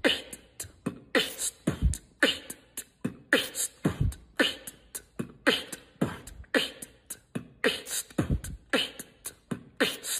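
Beatboxing: a person making drum sounds with the mouth, a steady beat of sharp snare and hi-hat strokes at about two to three a second, with a few deep kick-drum sounds mixed in.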